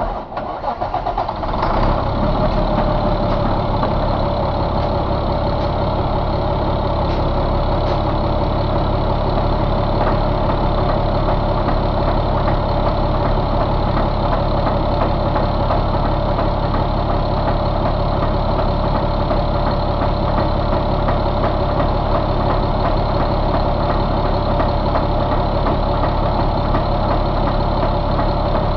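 A 2000 Caterpillar 3126 inline-six diesel engine is started: it cranks briefly and catches within about two seconds, then settles into a steady idle.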